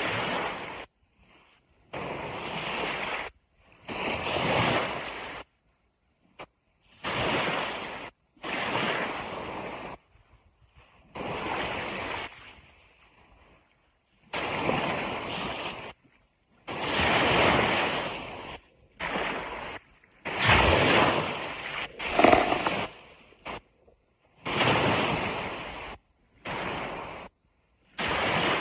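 Ocean surf washing onto a beach in repeated surges, each a second or two long, broken by sudden short silences.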